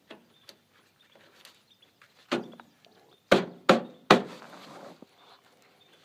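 Four sharp knocks, as of something hard being struck, one about two seconds in and three in quick succession a second later, with lighter clicks and taps in between.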